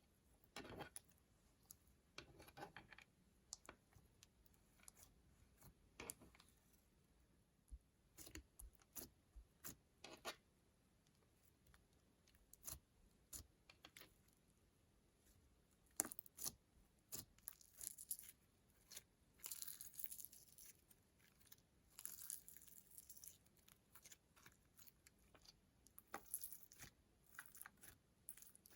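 Slime being handled and mixed with makeup: quiet, irregular crackles, clicks and squishes, with a denser run of crackling about two-thirds of the way through.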